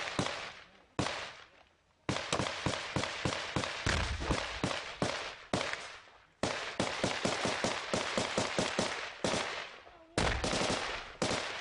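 Gunfire in a shootout: two single shots about a second apart, then long runs of rapid shots at about five a second, a brief pause, another run, and a few spaced shots near the end, each shot trailing off in an echo.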